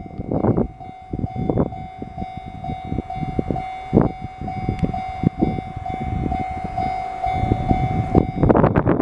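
A train passing over a Japanese railway level crossing, its wheels clacking irregularly over the rail joints, with heavy rumbling building again in the last second. Through it the crossing's electronic warning bell rings at one steady pitch.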